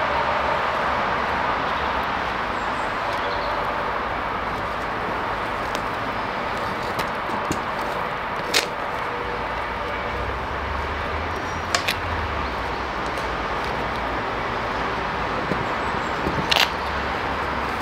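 Gas-fired melting furnace burner running with a steady, even rushing noise, broken by a few sharp clicks.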